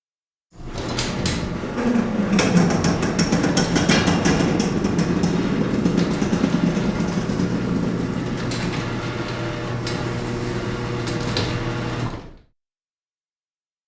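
Heavy metal garage door opening: rattling and rapid clicks over a steady low hum for about twelve seconds, then it stops abruptly.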